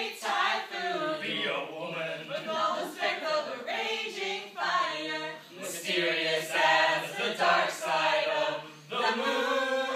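A group of young male and female voices singing together unaccompanied, ending on a long held note near the end.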